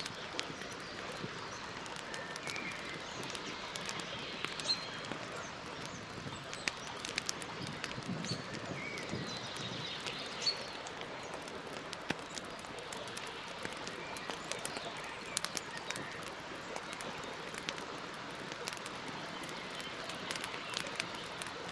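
Wood campfire crackling: irregular sharp pops and snaps over a steady hiss of burning. A few faint bird chirps are heard behind it.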